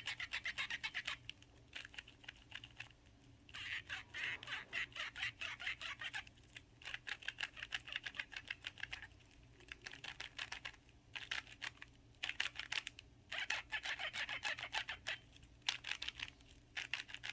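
Even-layer speedcube (4x4/6x6-type) being turned: bursts of rapid scratchy clicking a second or two long with short pauses. It is the odd turning noise of a cube whose positioning ring and moving ring rub together unlubricated.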